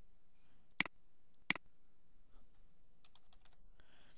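Clicks from working a computer mouse and keyboard: two sharp clicks about a second in, half a second apart, then a quick run of about five faint taps around three seconds in.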